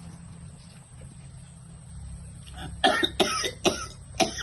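Goat coughing: four harsh coughs in quick succession starting about three seconds in, after a low steady hum.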